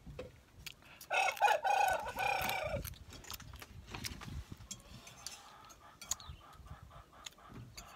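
A rooster crows once, a long call starting about a second in and lasting nearly two seconds. Faint clicks sound around it.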